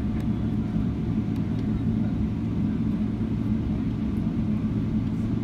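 Steady low rumble and hum inside the cabin of a Boeing 777-300ER taxiing, its GE90-115B engines at idle.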